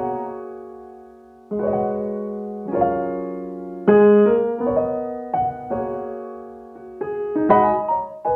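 Background piano music: chords struck about every second or so, each ringing on and fading before the next.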